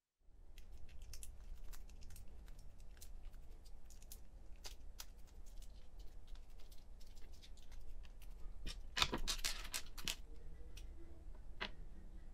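Small sharp clicks and scrapes of a jeweller's screwdriver working the screws out of a plastic RC servo case and of screws and parts being set down on a table, with a denser run of louder clicks about nine seconds in. A low hum runs underneath.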